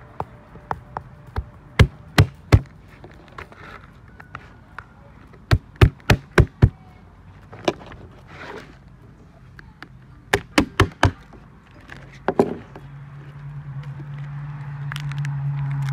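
Sharp knocks on a wooden table while slipper lobsters are being cleaned: the shells or a knife striking the boards, in quick groups of three to five. A low steady hum comes in near the end.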